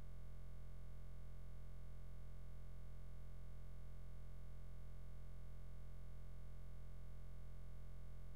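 A steady, unchanging low hum with fainter higher tones above it.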